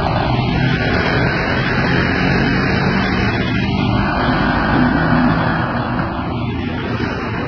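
Steady, loud street noise with a low, wavering hum of traffic.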